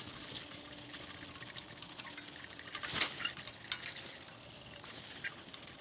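Heavy-duty steel wire brush scrubbing rusty metal at the engine's ignition coil mount points: a scratchy, clinking scrape made of many small ticks, with one sharper click about three seconds in.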